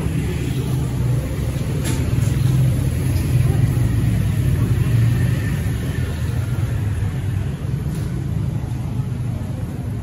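Street traffic: vehicles passing on a city street with a steady low rumble that swells a few seconds in and eases toward the end.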